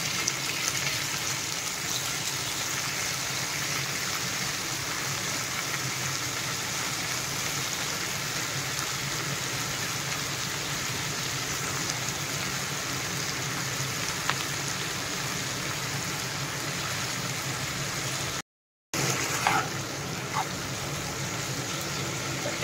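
Brinjal and capsicum pieces frying in hot oil in a non-stick pan: a steady sizzling hiss. The sound cuts out completely for about half a second about three-quarters of the way through, followed by a couple of faint clicks.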